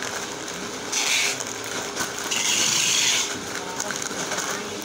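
Plastic snack bags crinkling as they are handled, in two bursts: a short one about a second in and a longer one between two and three seconds in. Under them, a conveyor belt runs with a steady hum.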